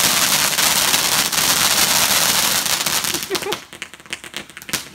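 A garden firework crackling densely, then thinning into a string of separate sharp cracks and pops about three and a half seconds in.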